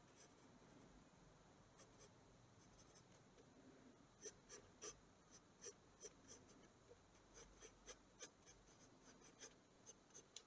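Faint scratching of a mechanical pencil's graphite on drawing paper in short, irregular strokes, which come thicker from about four seconds in.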